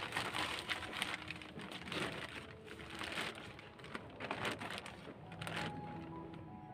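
Dry bamboo leaves rustling and a woven plastic sack crinkling as the leaves are shaken and pulled out of it, in a series of bursts about one a second.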